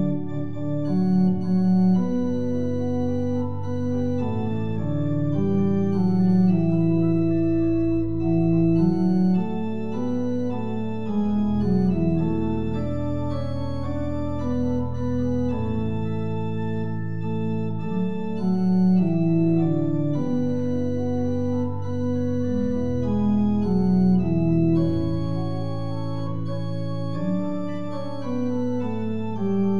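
Organ playing a slow prelude in long held chords that change every second or two, with deep bass notes coming in and out beneath them.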